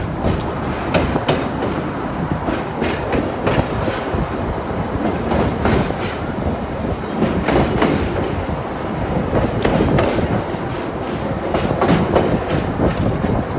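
Heritage streetcar from Australia rolling across a steel truss bridge: a steady rumble of the moving car, with the wheels clicking irregularly over the rail joints.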